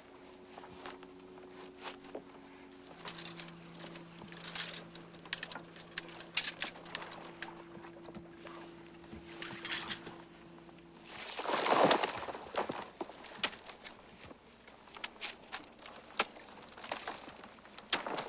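Metal ice-climbing gear clinking and jangling, carabiners and hardware knocking as the rope is handled through a harness carabiner, in many short scattered clicks. A faint steady low hum lasts for most of the first eleven seconds, and a brief loud rush of noise comes about twelve seconds in.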